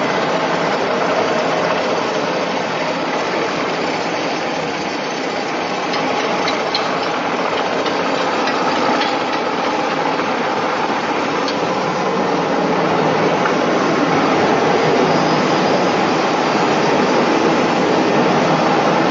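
E6013 welding electrode production machinery running, a loud, steady mechanical noise.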